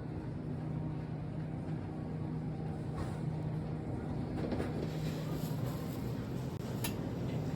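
Car running on the road, heard from inside the cabin: a steady low engine hum under road rumble, with a few faint clicks and knocks in the second half.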